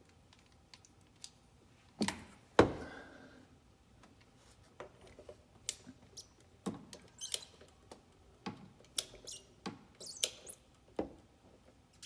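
Two sharp metal knocks about two seconds in, then a scattered run of short clicks and squeaks as a torque wrench on a socket and extension is worked at the engine, tightening a fastener toward 25 newton meters.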